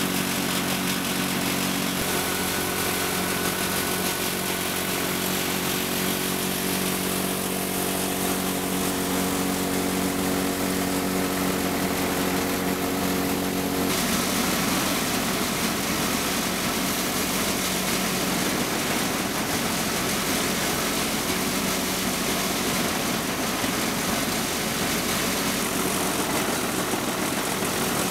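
Eicher tractor's diesel engine running steadily, powering a Sonalika wheat thresher, with the machine's continuous rushing noise over the engine's hum. About halfway through, the steady hum fades back and the rushing noise takes over.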